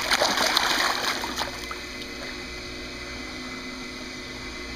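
A boy diving headfirst into a swimming pool: a loud splash lasting about a second and a half, then quieter sloshing and lapping of the disturbed water.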